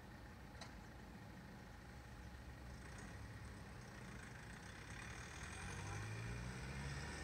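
Faint engine of a distant motor vehicle, a low hum that grows a little louder near the end.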